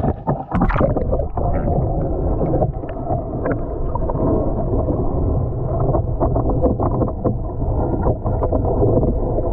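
Creek water flowing past a GoPro held underwater: a muffled rushing with scattered clicks and knocks.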